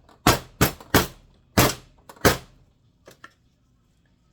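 Soap-making equipment rapped hard against a work surface: five loud, sharp knocks in quick succession, then two faint ones about three seconds in.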